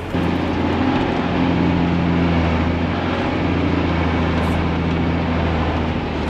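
Mercedes-Benz Unimog's diesel engine running steadily under way, heard from inside the cab as a steady low drone with road and cab noise over it.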